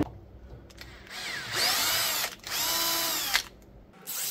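Cordless drill driving a thread tap into a cast iron pipe end cap. The motor runs in two short spells, each rising in pitch as it spins up and falling as it stops.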